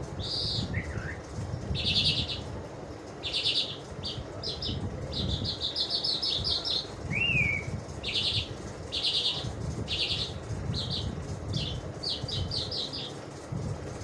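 Caged lark singing: a series of short buzzy, rattling chirps about a second apart, some run together into quick trills, with a short rising-then-falling whistle about seven seconds in. A low rumble lies underneath.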